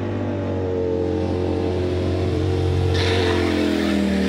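Ducati V4 S sportbike's V4 engine running, its note falling gradually in pitch. About three seconds in it drops to a lower note with added hiss.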